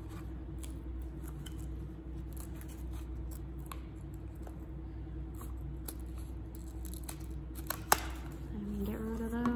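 Scissors cutting through glued rolled magazine-paper tubes: a run of uneven snips and crunches, with one sharper click about eight seconds in, over a steady low room hum.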